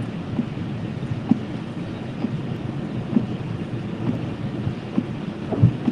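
Road noise inside a moving car: a steady low rumble with light thumps about once a second.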